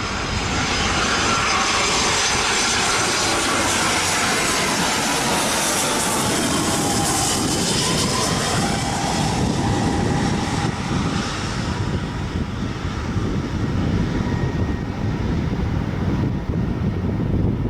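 Airbus A320's jet engines spooling up into reverse thrust on the landing rollout, heard from inside the cabin: a loud rushing roar that builds over several seconds and dies away about eleven seconds in, over a steady low rumble from the runway.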